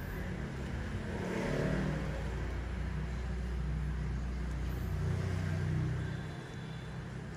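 A motor vehicle's engine rumbling past, its pitch rising and then falling about one to two seconds in, with a second swell in loudness near the end.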